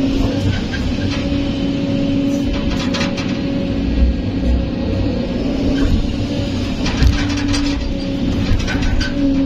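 Kobelco SK200 hydraulic excavator's diesel engine and hydraulics running steadily under load, heard from inside the cab, with a held droning whine. Scattered clanks and rattles, and a heavy thump about four seconds in and another about seven seconds in.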